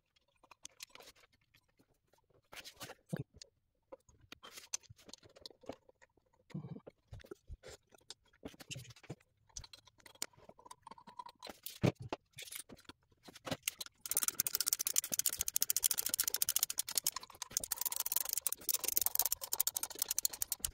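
Scattered light clicks and knocks of tools and parts being handled, then, about two-thirds of the way in, a ratchet clicking rapidly and evenly as it runs the bolts into the thermostat housing of a Mercedes M272 V6.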